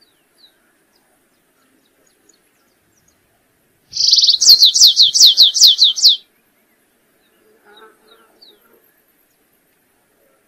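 Stripe-tailed yellow finch (canário-rasteiro) singing one phrase about four seconds in. The phrase is a short buzzy opening followed by a quick run of about eight sharp notes, each sliding down in pitch, and lasts about two seconds. A few faint chirps come before and after it.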